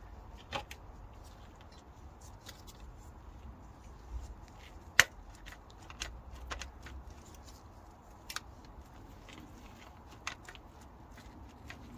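Scattered light metallic clicks and taps of hand tools and engine parts being handled, with one sharp click about five seconds in.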